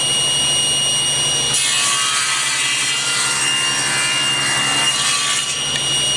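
Table saw running with a steady whine. From about a second and a half in until about five and a half seconds, the blade cuts through wood, ripping a thin 1/8 inch strip.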